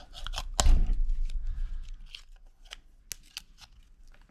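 Knife cutting and prying at stiff plastic packaging: a run of sharp crackles and snaps, with a louder snap and thud about half a second in.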